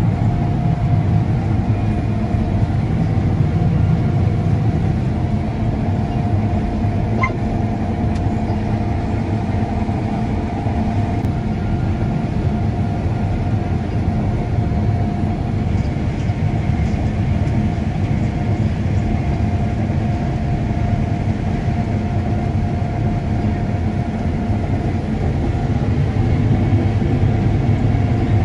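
Combine harvester running steadily while cutting soybeans: a constant low drone with a steady whine over it.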